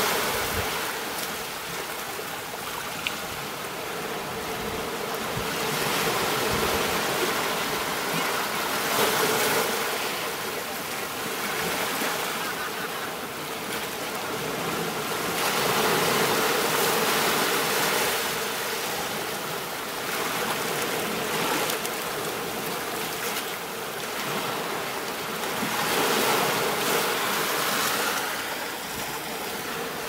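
Ocean waves washing onto a sandy beach: a continuous rushing wash that swells and eases every few seconds as each wave breaks and runs up the shore.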